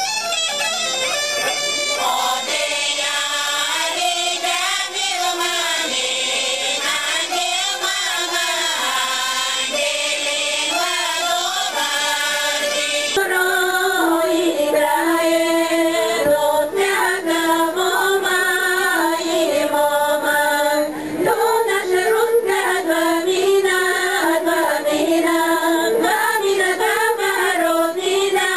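Bulgarian women's folk choir singing together in close harmony, the voices sliding and bending between notes. About 13 seconds in it cuts abruptly to another women's group singing.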